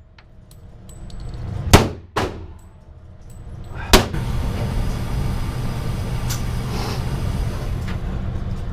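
Three pistol shots from a .45 ACP 1911: two in quick succession a little under two seconds in, then a third about two seconds later. A steady low rumble follows the last shot.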